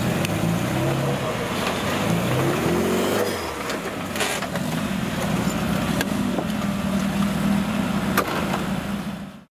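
Off-road 4x4 competition vehicle's engine running steadily, with the revs rising briefly a little over two seconds in and a few sharp knocks. The sound fades out just before the end.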